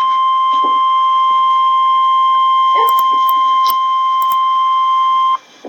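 Emergency Alert System attention signal: one steady, loud tone near 1 kHz, the single-frequency 1050 Hz warning alarm tone of NOAA Weather Radio, held for several seconds and cutting off abruptly near the end.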